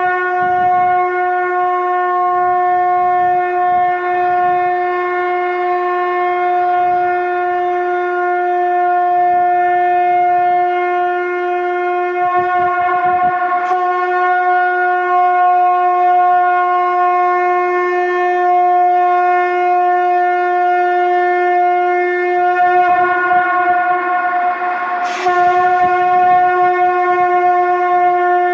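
Conch shell (shankh) blown in long, steady blasts on a single pitch, each held for more than ten seconds, with a fresh blast starting about 13 seconds in and again about 25 seconds in.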